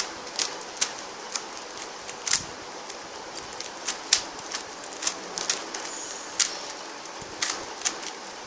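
YJ Linggan stickerless 3x3 speed cube's layers being turned to scramble it: sharp plastic clicks at an uneven pace of about two or three a second.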